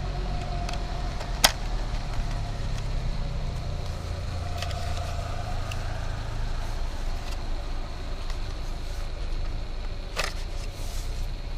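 Yamaha Cuxi scooter running with a steady low rumble, broken by a few sharp knocks; the loudest comes about a second and a half in, and others near the middle and near the end.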